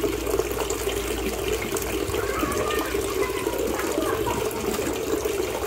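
A steady stream of water pouring from a pipe and splashing into a fish pond.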